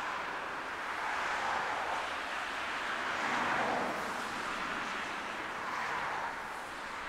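Jet engines of a taxiing Airbus airliner heard from afar: a steady rushing hiss that swells and eases a few times, loudest about three and a half seconds in.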